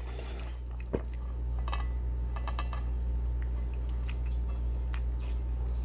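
Close-miked chewing of soft stewed vegetables and pork, wet mouth sounds with a few short clicks, over a steady low electrical hum.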